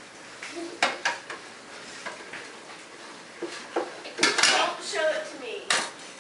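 Metal pots and pans clanking and clattering in a lower kitchen cabinet as a pooper scooper is worked in among them, a series of sharp knocks, the loudest cluster about four seconds in.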